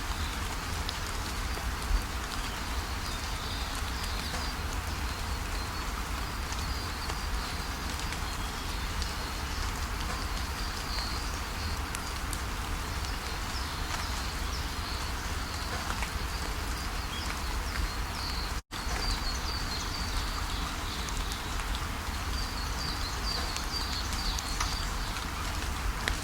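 Waterfall running steadily, with small birds chirping high above the rushing water. The whole sound drops out for an instant about two-thirds of the way through.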